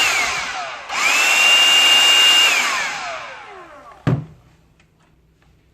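Handheld cordless vacuum's motor switched on twice in a row, each time whining up to a steady high pitch with a rush of air, then winding down over about a second and a half. A single sharp knock comes just after it stops.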